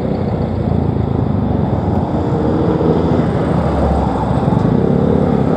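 Motorcycle engine running steadily while riding in traffic, with road and wind noise over the microphone.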